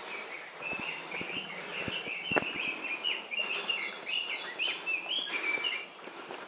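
A bird singing a long run of quick, varied chirps that stops near the end, over footsteps on a forest trail with a sharp knock or click a couple of seconds in.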